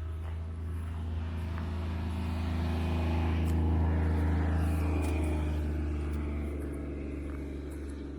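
A motor vehicle passing by: engine and tyre noise swell to a peak about four seconds in, then fade, over a steady low hum.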